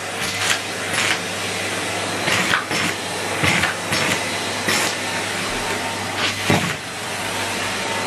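Numatic Henry Turbo HVT160 vacuum cleaner running steadily while sucking up biscuit crumbs from a carpet through the bare hose end. The steady suction is broken by short, irregular rattles as bits of biscuit go up the hose.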